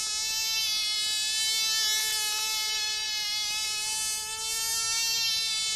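Tiny model aeroplane engine running with a steady, high-pitched buzzing whine as it pulls a seated person round a pivot.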